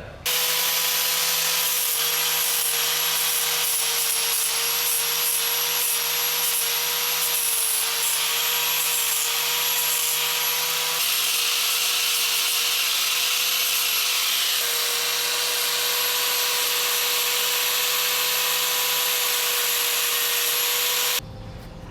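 Electric power sander running steadily at a constant pitch, grinding down the rough edges of a hand-cut steel chainsaw bucking dog. It starts at once and cuts off suddenly near the end.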